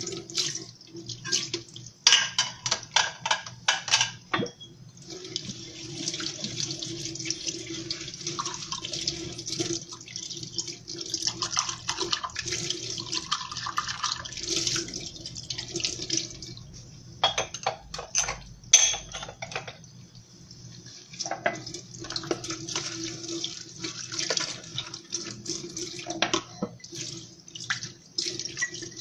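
Dishes being washed by hand at a kitchen sink: tap water running and splashing, with dishes, cutlery and glasses clinking and clattering against each other and the sink. The clatter comes in busy runs, the tap flow easing off briefly in places.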